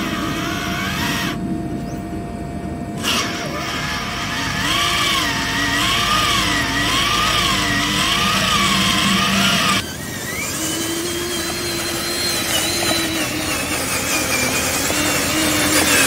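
Electric motors and gearboxes of radio-controlled dump trucks whining under load as they drive through mud, the pitch rising and falling over and over. About ten seconds in the sound changes abruptly to a steadier, slowly rising whine.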